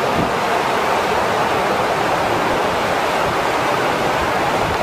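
Turbulent floodwater in a flash-flooding desert creek, rushing with a steady, even roar.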